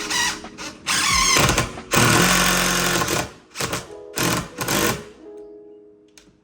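Power driver driving long deck screws into a door frame in several bursts, the longest about two seconds in, with shorter bursts later on.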